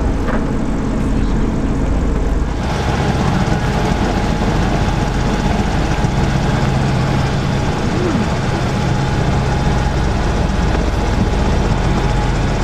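Steady drone of a Zeppelin NT airship's piston engines and propellers in flight, heard inside the passenger cabin, with a low hum under a wide rushing noise. The noise grows a little brighter about two and a half seconds in.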